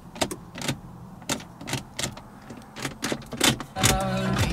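A run of sharp clicks, roughly two a second, from the flooded Saab 9-3's ignition and electrics as it is tried for a start: the engine does not crank. About four seconds in a short steady hum sets in.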